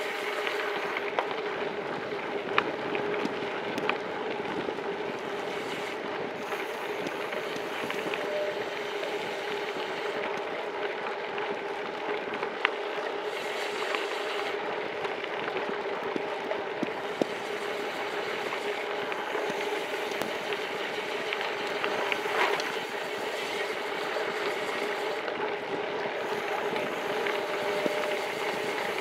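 Gravel-bike tyres rolling fast downhill over a dirt road, a steady rumbling hiss mixed with wind noise, with scattered sharp clicks and ticks from the bike and road.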